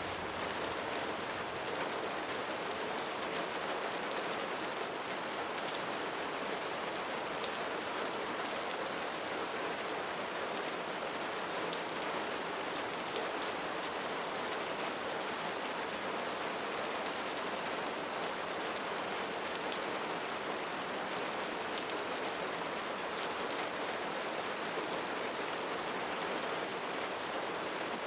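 Steady rain falling on leaves: an even hiss of many drops, with scattered nearer drops ticking through it.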